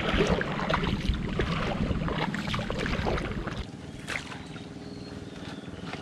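Water splashing and sloshing as a small outrigger boat is pushed along with a bamboo pole, with scattered crackles. The heavier low rumble drops away about three and a half seconds in, leaving a quieter stretch.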